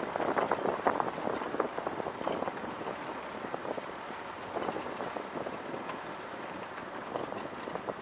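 Car tyres rolling slowly over a gravel and dirt track: a dense crunching crackle of small stones, heaviest in the first couple of seconds, then thinning out.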